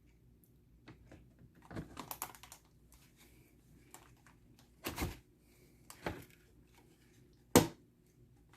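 Clicks and knocks of a graphics card and its metal bracket being handled and fitted into a PC case. There is a cluster of small clicks about two seconds in, then three sharper knocks, the last and loudest near the end.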